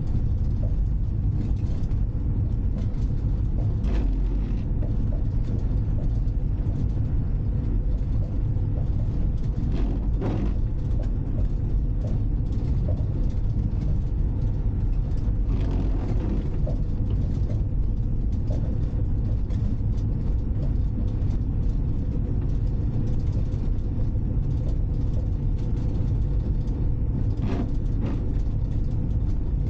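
Citroën C15 D diesel van driving on a snowy road, its engine and road noise heard inside the cab as a steady low rumble. A few brief knocks come through it.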